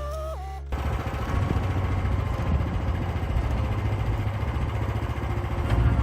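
Tail of background music that cuts off abruptly about a second in, replaced by an engine running steadily with a rapid low pulsing.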